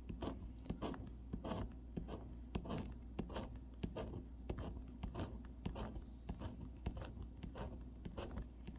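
Scratch-off lottery ticket being scratched: quick, repeated scraping strokes across the ticket's coating as the play area is uncovered.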